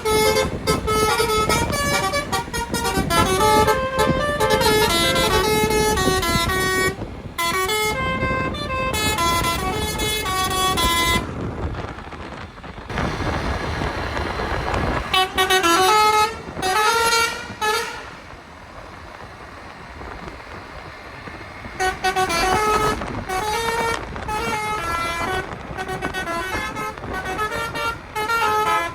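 Basuri musical bus horns playing telolet tunes, quick melodies of stepping notes. The tune breaks off about twelve seconds in for a stretch of plain traffic noise, comes back briefly, pauses again, then plays on for the last several seconds.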